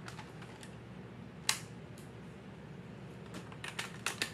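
Plastic clicks from handling a toy Nerf double-barrel shotgun and its shells: one sharp click about a second and a half in, then a quick run of lighter clicks near the end.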